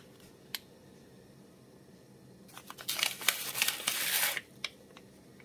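Crinkling of a paper baking-powder sachet being handled and tipped out, for about two seconds in the middle, after a single faint click near the start.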